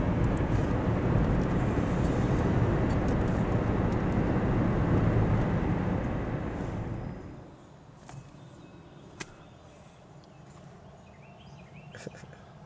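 Car road and engine noise while driving, a steady low rumble that stops abruptly about seven seconds in. A quiet background follows, with a few sharp clicks and faint high chirps.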